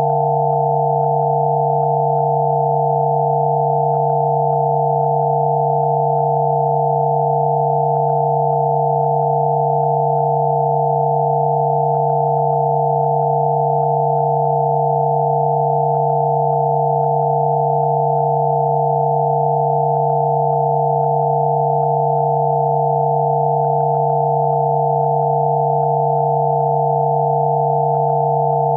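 Several pure electronic sine tones sound together without any change: one low tone with a cluster of higher ones above it. These are generated Rife-frequency therapy tones.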